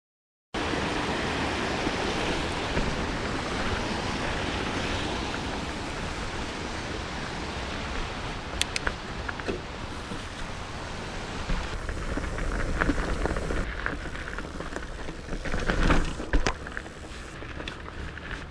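Steady rushing noise of wind on the microphone and tyres rolling over a dirt trail while riding a mountain bike, starting abruptly about half a second in. Scattered knocks and rattles from the bike on the trail come in during the second half, loudest near the end.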